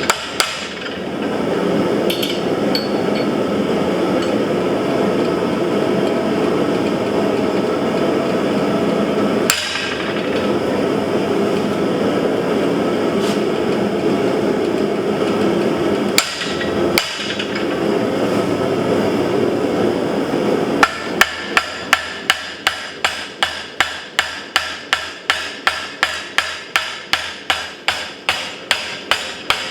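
A steady rushing noise with a few single knocks. About two-thirds of the way in it gives way to regular hammer blows on steel at the anvil, about two or three a second, each ringing briefly.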